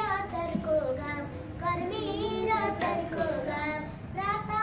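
A young boy singing a Nepali song solo, holding long notes that waver in pitch, with short breaths between phrases.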